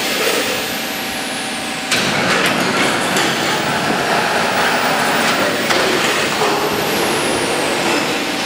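Dense, steady industrial machinery noise in a large workshop hall, stepping up suddenly about two seconds in and staying loud.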